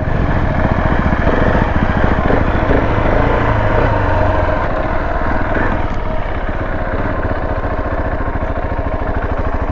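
Motorcycle engine running steadily at low revs, with an even pulsing beat and no revving up.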